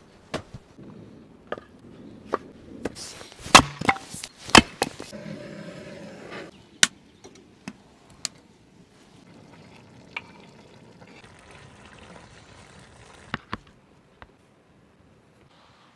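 Firewood being chopped and split: a run of sharp knocks, loudest in a quick cluster about three to five seconds in, with quieter scattered knocks and handling noise around them.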